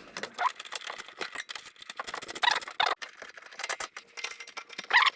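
Rapid, irregular clicks, taps and short scrapes of hand tools and fasteners as the car's underbody skid plate is fitted back on and fastened.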